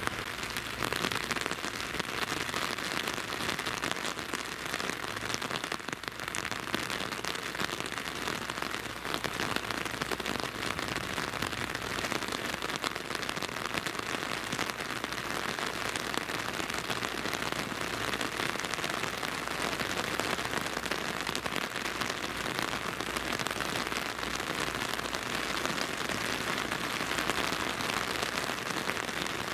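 Rain falling steadily in an even, unbroken hiss.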